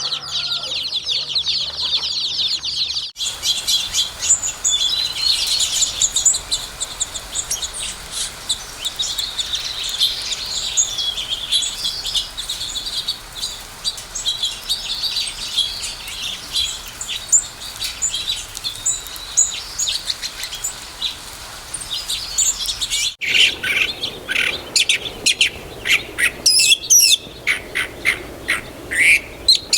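Songbirds chirping and singing, many short high calls overlapping. It starts with a fast, even trill, then cuts suddenly to a busy chorus of chirps. About 23 seconds in it cuts again to louder, separate sharp chirps in quick runs.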